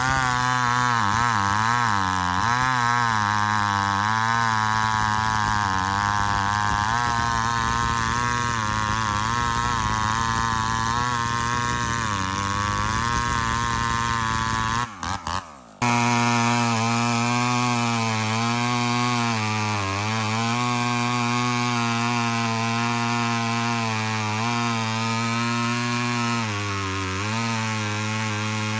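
Two-stroke chainsaw running at high speed while cutting wood, its engine note sagging and recovering again and again as the chain loads up in the cut. The sound breaks off briefly about halfway through, then carries on.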